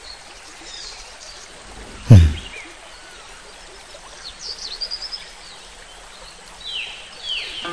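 Outdoor ambience: a steady background hiss with birds chirping around the middle and near the end, and one loud low thump that falls in pitch about two seconds in.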